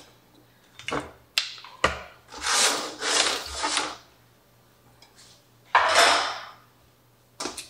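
Small kitchen items being taken out of a wooden drawer: a few light knocks, then several scraping, rustling swishes as things are slid and lifted across the drawer bottom, and a couple of clicks near the end.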